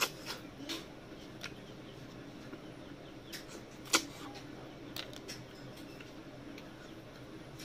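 Close-up mouth sounds of a person eating river snails by hand, sucking the meat out of the shells: scattered short slurps, smacks and clicks, the loudest about four seconds in, over a steady low hum.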